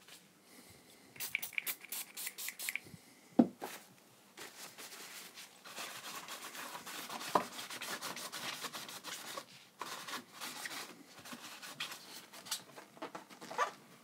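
A cloth rubbing and wiping over an amplifier's circuit board, a rustling scrub broken by small clicks. A run of quick clicks comes about a second in and a single sharp knock about three and a half seconds in.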